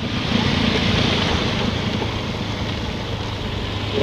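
Motor scooter running at a steady cruise: a constant low engine hum under a continuous rush of wind and road noise.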